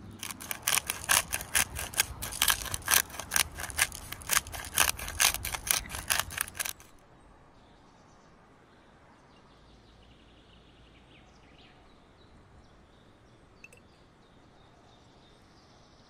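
A fast, even run of crisp knocks, about three or four a second, for roughly seven seconds, then cutting off abruptly. After that only faint background noise is left, with a few faint high chirps.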